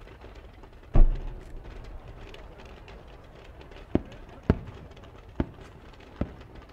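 Fireworks: one deep, low boom about a second in, then four sharp cracks spaced over the following seconds, as a three-shaku (sanjakudama) shell climbs with small bursts going off along its rise.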